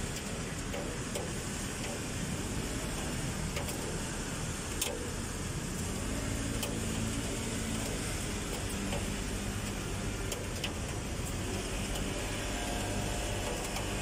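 Steady hiss of rain over a wet city street, with car traffic passing below; an engine hum rises from about halfway through. A few faint ticks sound along the way.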